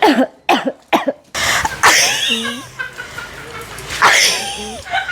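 Coughing: three quick coughs in a row, then two louder, harsher coughs about two seconds apart.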